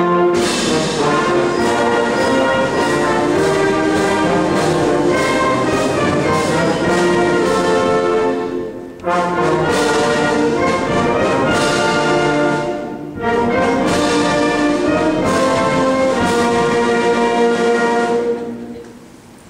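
Military brass band playing a piece of sustained chords, breaking off briefly between phrases about nine and thirteen seconds in, with the last chord dying away near the end.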